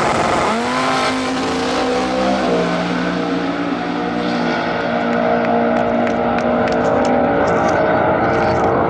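A drag race car accelerating hard down the strip, its engine climbing in pitch off the line and then dropping in steps at gear changes about two and a half and four and a half seconds in.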